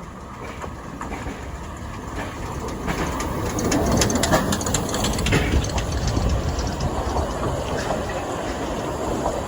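Narrow-gauge train running on the rails with wheels clattering over rail joints, getting louder over the first few seconds and loudest about four to five seconds in, then running on steadily.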